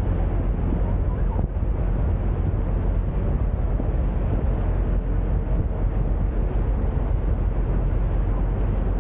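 A boat's engine running with a steady low drone, and wind buffeting the microphone over it.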